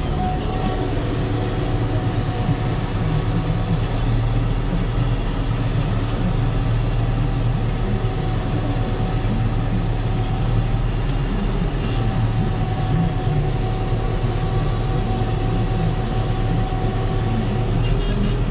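Steady drone of heavy diesel machinery heard from inside a tractor cab: the tractor's Perkins diesel engine and a Claas Jaguar forage harvester running close ahead as it chops standing maize.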